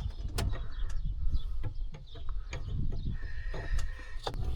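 Scattered clicks and knocks of hand work on a combine's steering column, with a brief high squeak about three seconds in.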